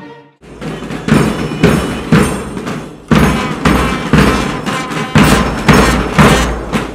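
Music with heavy, evenly spaced drum beats, about two a second, starting about half a second in, with a brief break just before three seconds in.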